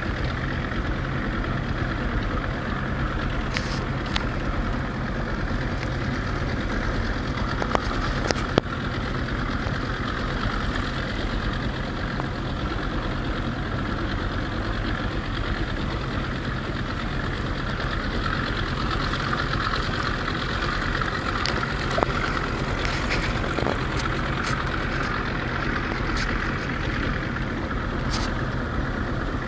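Small boat's outboard motor running steadily as the boat moves along. A couple of short knocks cut through, about eight seconds in and again past the twenty-second mark.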